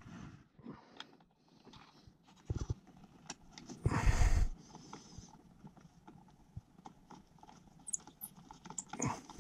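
Scattered light clicks and knocks of hand work on electrical wiring, with a dull thump a little before three seconds in and a short rustle about four seconds in.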